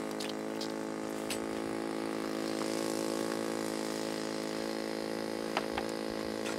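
Nitro glow engine of a 700-size model helicopter idling steadily below clutch engagement, so the rotor stays still. Two light clicks come near the end.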